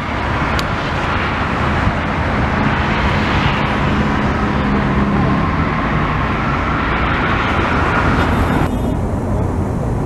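Steady city road traffic, engines running with a low hum under a wide hiss; the tone shifts a little near the end.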